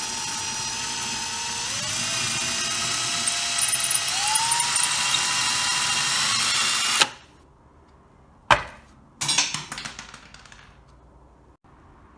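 Electric drill with a 4 mm bit drilling into the ceiling: a steady whine that steps up in pitch twice as it runs, then stops abruptly. A sharp click and a short burst of noise that fades follow near the end.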